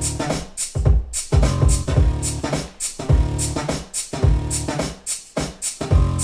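Electronic music with a heavy, repeating bass beat and crisp high percussion, played back through a pair of 4-way floor-standing loudspeakers.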